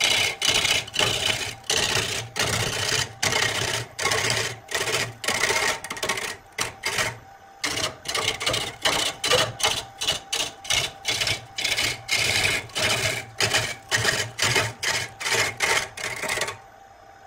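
Wood lathe turning a large charred log while a hand-held lathe tool cuts into it. The cutting comes in quick bursts, about three a second, over the steady hum of the spinning lathe, and stops shortly before the end.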